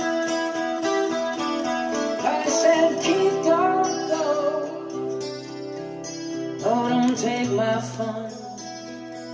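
Guitar-led song with a sung line, played through a 2-watt 13JZ8 valve amplifier and 1959 Phonola 10.2-inch radio speakers.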